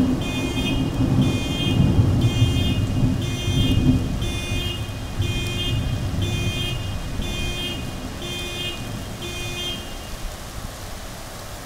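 A vehicle alarm sounding a pitched pulse about once a second, stopping about ten seconds in, over the steady hiss of heavy, wind-driven rain.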